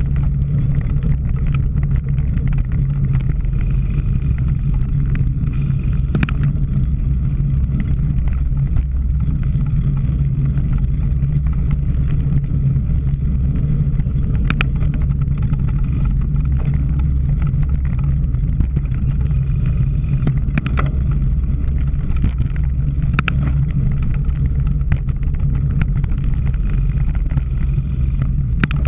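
Steady low wind-and-road rumble from riding a cyclocross bike, heard on a camera mounted on the rider or bike, with a few sharp clicks and knocks from the bike over rough ground.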